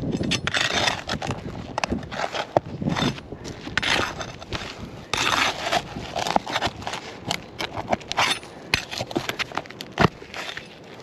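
Sealed asphalt three-tab shingles being pried up with a tool: crackling and tearing as the sealant bond lets go, with scraping and many sharp knocks.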